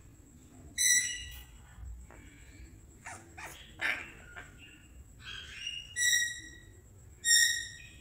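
African grey parrot giving short whistled calls while being petted: three loud ones, about a second in, around six seconds and near the end, with softer, shorter sounds in between.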